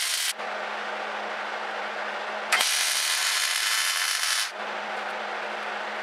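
Welding arc crackling in two welds that start and stop abruptly: one ending just after the start, then another of about two seconds in the middle. A quieter steady hiss and low hum lie between.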